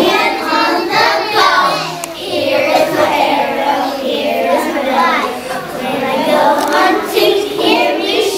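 A group of young children singing together in unison, a song performed with hand motions.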